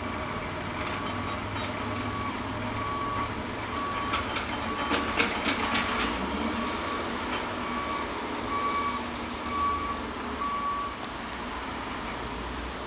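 Backup alarm on heavy yard machinery at a mulching operation, beeping steadily about three times every two seconds over a low engine rumble. A burst of metallic clanks and knocks comes in the middle.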